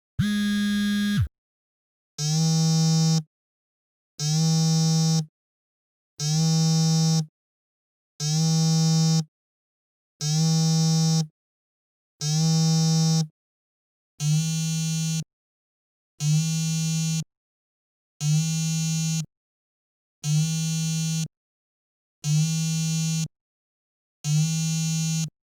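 Mobile phone on vibrate, buzzing in a regular pattern: a steady buzz about a second long, one every two seconds, with silence between.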